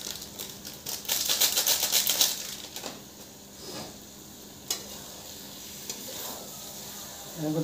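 A metal spatula stirring and scraping paneer, onions and ground pepper in an iron kadai, with a quick run of clattering strokes about one to two seconds in and a single knock later. Food frying and sizzling in the pan underneath.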